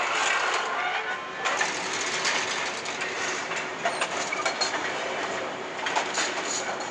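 Assembly-line clatter: small metal parts and fixture clamps clicking and clinking as they are handled at the stations, over a steady din of factory machinery.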